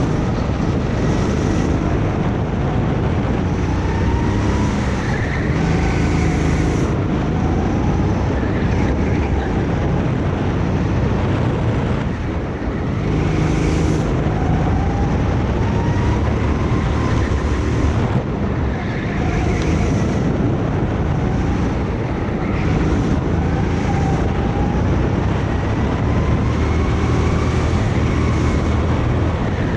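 Kart engine running hard lap after lap, its pitch climbing slowly as it revs up, then dropping off and climbing again, over and over.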